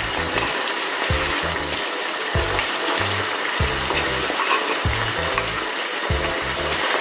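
Minced pork and vegetables sizzling in oil in a frying pan, a steady hiss, under background music with a repeating bass line.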